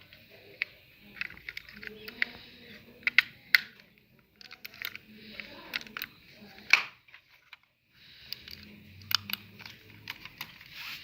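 Irregular sharp plastic clicks and taps from a computer mouse being handled, its casing and buttons worked, with a break of about a second near the two-thirds mark.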